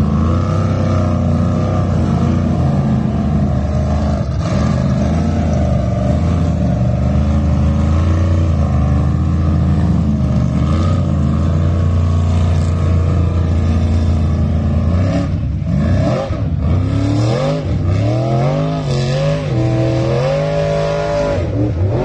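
Formula offroad buggy's engine running loud at full throttle. It holds steady high revs for most of the climb, then the revs rise and fall sharply over the last several seconds.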